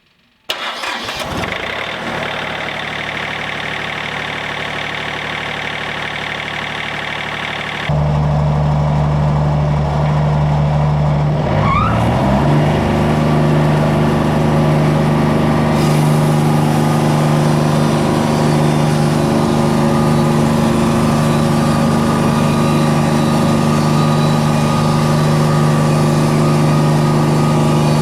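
Wood-Mizer LT40 Wide bandsaw mill's engine running steadily, then stepping up to a louder, steady full-speed run about eight seconds in, with a short rising sweep a few seconds later, as the mill gets ready for its first cut.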